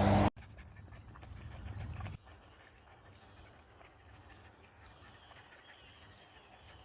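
Lawnmower engine running with a steady hum that cuts off abruptly a fraction of a second in; a fainter low engine hum carries on and stops about two seconds in, leaving quiet outdoor ambience.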